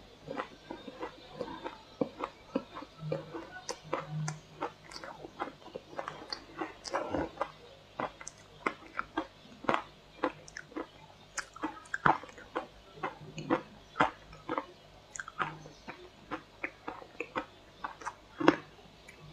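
Close-up crunching and chewing of mouthfuls of shaved ice dusted with matcha powder: many sharp, irregular crunches, several a second.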